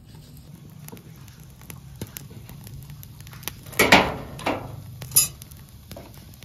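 Thin sticks burning in a small wood-fired stove, crackling with scattered small pops and a few louder snaps about four to five seconds in.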